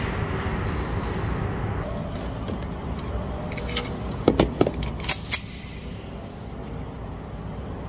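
A Beretta pistol being handled: a handful of sharp metallic clicks and clacks from its moving parts, bunched together a little past the middle, over a steady background rush.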